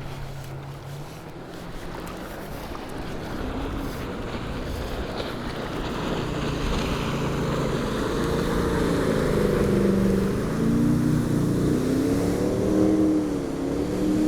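A motor engine, heard over wind, grows louder as it comes closer, with its pitch rising and falling over the second half.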